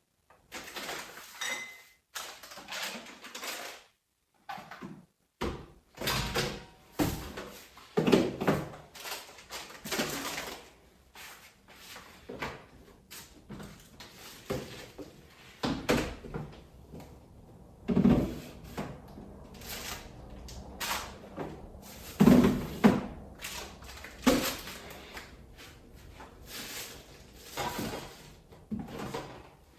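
Irregular knocks, clunks and clatters of household things being handled and set down, a dozen or more separate hits.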